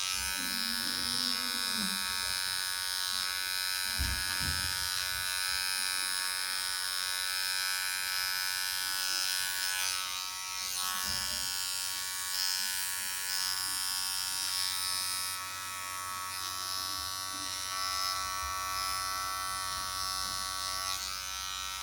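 Electric hair clippers buzzing steadily as they trim along a hairline, switching off at the very end.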